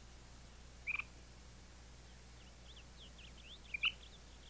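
Faint outdoor ambience with short, high bird chirps about a second in and again near the end, and a quick run of fainter chirping notes between them, over a steady low hum.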